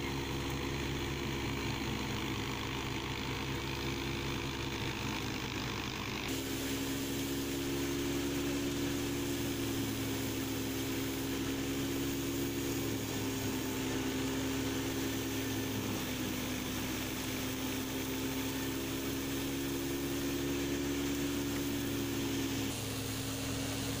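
Tractor-powered wheat thresher running steadily while wheat sheaves are fed in: a continuous machine drone with a steady hum from the tractor engine and the spinning threshing drum. The tone shifts abruptly about six seconds in.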